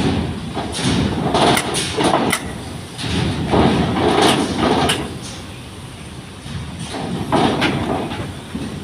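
Cars rolling off a ferry's unloading ramp one after another: engine and tyre noise swells as each passes, with sharp metallic clanks as wheels cross the ramp, several in quick succession between about one and two and a half seconds in.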